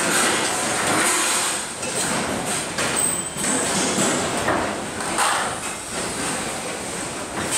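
Construction-site din around aluminium wall formwork, with irregular metallic knocks and clanks as the formwork and a window subframe are worked on.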